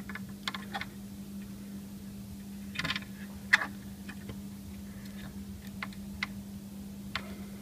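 Small clicks and scrapes of fingers working a crimped wire connector into a stiff low-voltage terminal socket on a central vacuum unit's plastic housing, with one sharp click about three and a half seconds in. A steady low hum runs underneath.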